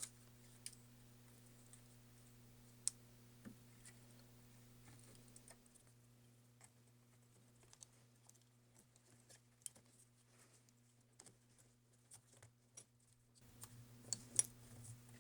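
Faint, scattered small clicks and taps as a replacement speaker module is handled and seated in a MacBook Pro's case, over a steady low hum.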